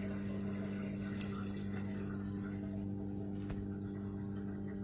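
Steady low electrical hum from a running motor or appliance, with a couple of faint clicks.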